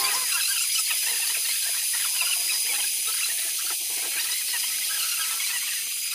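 Small metal lathe running while its cutting tool turns down the end of a metal tube: a steady high hiss and thin whine, with many short squeaks from the cut.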